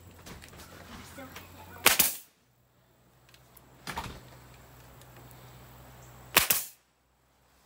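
Pneumatic nail gun firing nails into the wooden shelf frame: two loud sharp shots about 2 and 6.5 seconds in, with a lighter one around 4 seconds in.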